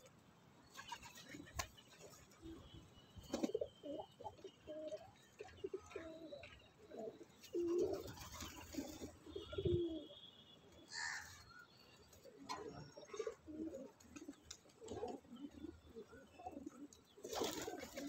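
A flock of domestic pigeons cooing, many short low coos overlapping, with a brief burst of wing flapping near the end.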